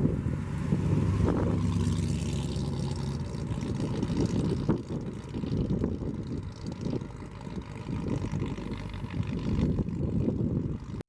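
1956 Ford F-100's 272 Y-block V8 driving past, its engine note clear for the first three seconds or so and then fading as the truck moves off, with wind buffeting the microphone.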